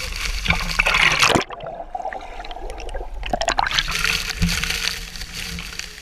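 Water splashing and churning right at a camera held at the surface of a swimming pool beneath a waterfall. About a second and a half in, the sound goes suddenly muffled for about two seconds, as when the camera dips under the water, then the open splashing comes back.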